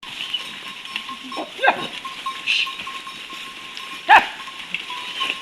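Sheep of a Himalayan flock bleating: a few short calls over a steady background, the loudest a little after four seconds in.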